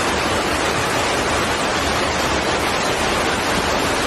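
Floodwater rushing, a steady unbroken noise of fast-moving water.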